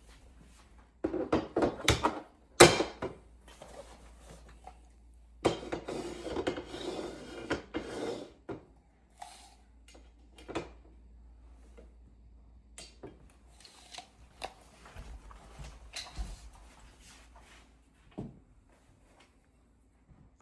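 Handling noise of mounting hardware: two spells of rustling clatter and knocks, with a sharp click about two and a half seconds in, then scattered light taps and clinks.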